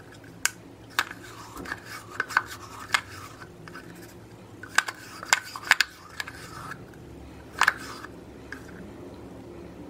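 Metal spoon scooping thick face-mask cream out of a cut-open plastic tube. It scrapes softly, with about eight sharp clicks as it knocks against the tube and the glass bowl.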